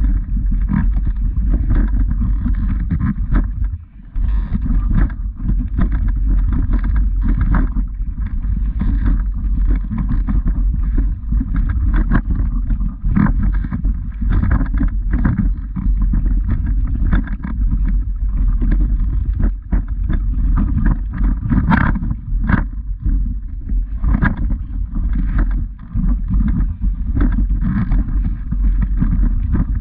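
Heavy, steady low rumble on the microphone, with irregular crunching footsteps on a loose stony path laid over it.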